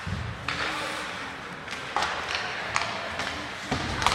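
Ice hockey game in an arena: several sharp clacks of sticks and puck, spaced about a second apart, over a steady background hubbub.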